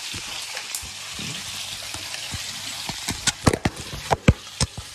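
Two whole trout frying in butter in a pan, with a steady sizzle. From about three seconds in comes a quick run of sharp knocks and clatters, louder than the sizzle.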